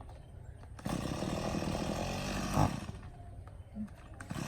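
A small petrol engine catches briefly, runs for under two seconds and dies, then starts up again near the end: an engine that will not stay running, although there is fuel in the tank.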